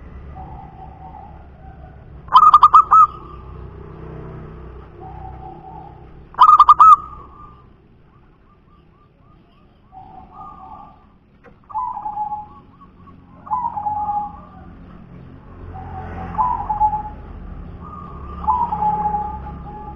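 Zebra dove (perkutut) cooing: two loud, rapid staccato coo phrases about four seconds apart, then after a short pause a run of softer short coo notes repeating through the second half.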